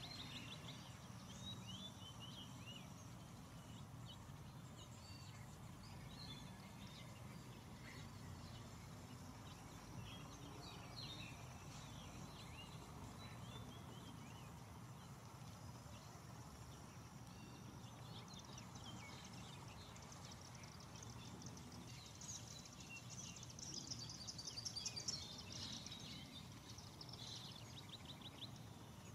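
Faint natural ambience: distant birds chirping and singing over a low, steady background noise. A rapid, high trill rises to its loudest about three-quarters of the way through.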